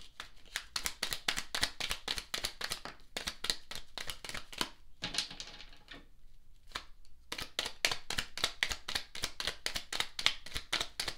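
A tarot deck being shuffled by hand: a rapid run of light card clicks and snaps, easing off briefly a little past halfway before picking up again.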